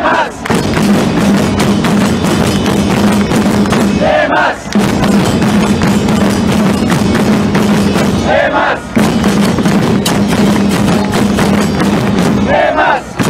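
Football supporters' section chanting in unison over constant drumming, the chant breaking off briefly about every four seconds before starting again.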